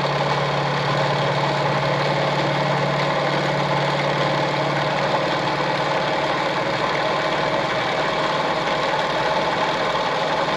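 Singer 306M vintage zigzag sewing machine running steadily at speed, stitching a decorative pattern set by an interchangeable disc cam: a continuous motor whir with a fast, even clatter from the needle and feed mechanism.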